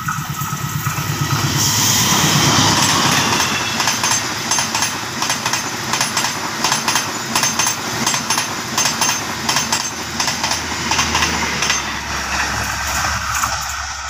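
A diesel-hauled passenger train passing close by. The locomotive's engine is loudest about two seconds in, then the coaches roll past with a steady rush and repeated clicking of wheels over rail joints.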